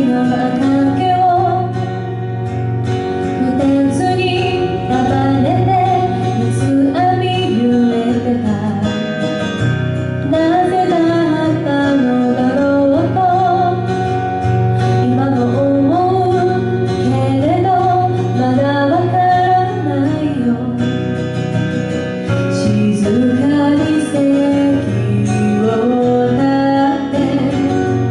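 A woman singing live into a microphone over instrumental accompaniment, her melody moving in long held notes that bend up and down.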